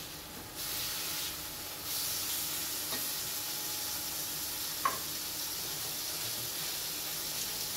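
Beef fillet and mushrooms sizzling and hissing in a frying pan as the red beer it was deglazed with reduces and its alcohol boils off. The hiss gets louder about half a second in and again about two seconds in, and there is one short clink near the middle.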